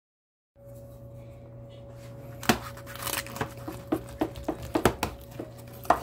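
Crispy roasted chicken skin crackling and tearing as a utensil cuts into the whole roast chickens: a string of sharp crunches, starting about two and a half seconds in, with a short tearing rustle among them, over a steady electrical hum.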